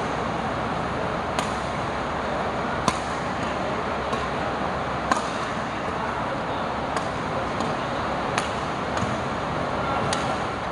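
Badminton rally: about nine sharp pings of rackets striking the shuttlecock, roughly one every second. Underneath runs a steady hiss of heavy rain.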